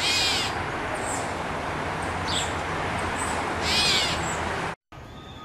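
Gray catbird calling: two loud, slurred, cat-like mews, one at the start and one near the end, with a few short, thinner notes between. A steady low hum runs underneath.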